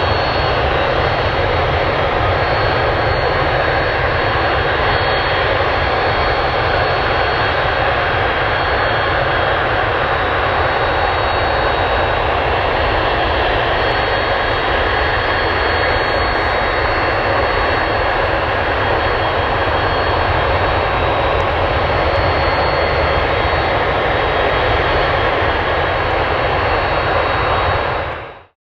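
Boeing 737-800's CFM56-7B turbofan jet engines running, a loud steady rumble with a thin high whine over it. The sound cuts off suddenly near the end.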